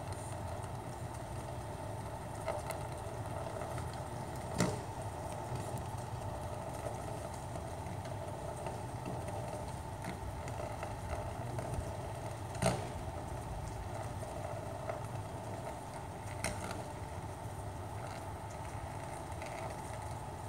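Sharp snaps of electrical arcing on a utility pole, four in all, the loudest about four and a half and twelve and a half seconds in, over a steady low hum.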